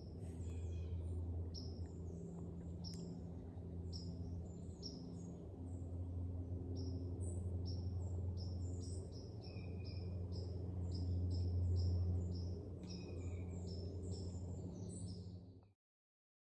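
Small birds chirping, short high chips repeated a few times a second, over a steady low hum; all sound cuts off suddenly near the end.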